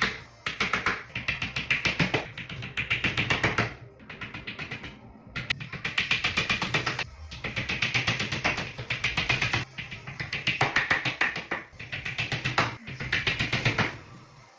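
Background music with a fast, steady beat, in repeating phrases that swell every couple of seconds.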